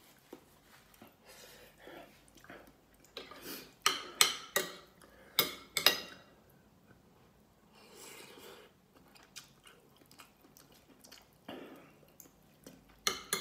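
Spoon and fork clinking and scraping on a ceramic plate of rice, with a cluster of sharp clinks about four to six seconds in and softer taps and chewing between.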